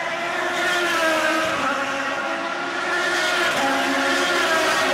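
IndyCar race cars' Honda V8 engines running at high revs as they pass the fence, several engine notes overlapping and shifting in pitch as cars go by.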